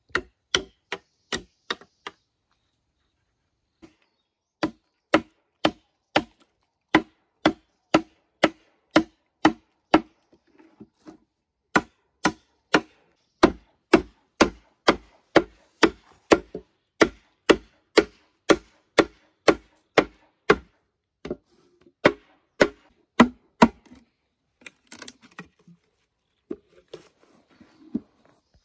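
A blade chopping bamboo in rapid, regular strokes, about two a second. There is a short pause about two seconds in, and the strokes turn lighter and scattered near the end.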